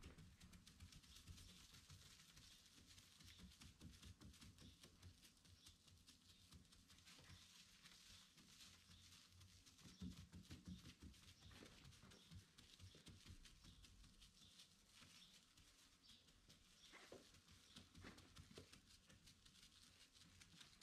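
Near silence, with faint scratchy rubbing: 5000-grit sanding paper on a foam block being worked by hand over a car's painted fender.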